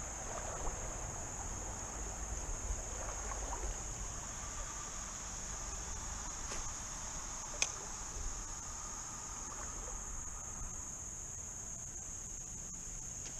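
Insects singing in a steady high-pitched drone over a low rumble, with one sharp click about seven and a half seconds in.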